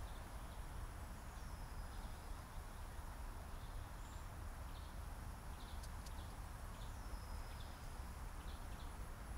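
Quiet woodland ambience: a steady low wind rumble with faint bird calls, including a thin high whistle about a second and a half in and another around seven seconds.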